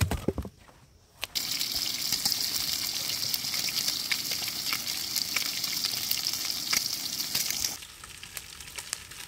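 Walleye fillets frying in hot oil in a pan: a couple of sharp knocks, then a loud sizzle with many small crackles that starts suddenly about a second in and falls to a quieter sizzle near the end.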